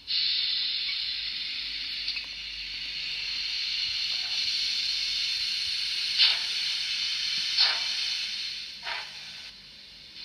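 Steam hiss from the sound decoder of a Fleischmann N gauge BR 044 steam locomotive model, starting suddenly and running steadily, with three brief louder steam puffs about a second and a half apart before it fades near the end.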